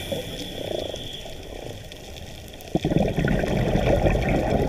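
Scuba diver breathing through a regulator, heard underwater: bubbles from an exhalation gurgle loudly at first and fade. After a click a little under three seconds in, the next exhalation sends out another loud burst of bubbles.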